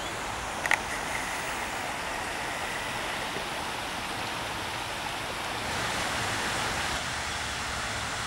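Steady outdoor ambient noise, an even rushing wash, with a single sharp click just under a second in; the noise grows a little louder a bit past the middle.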